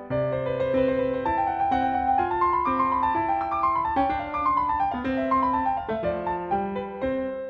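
Background piano music: a gentle melody of single notes over a low bass line.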